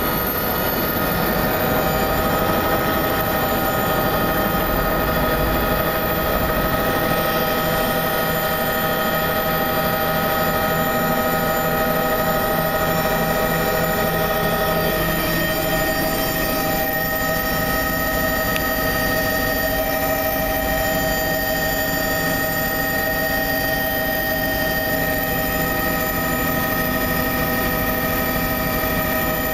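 Helicopter's turbine whine and rotor beat heard from inside the cabin, loud and steady, as it lifts off from the canyon floor and climbs; the pitch of the whine shifts slightly about halfway through.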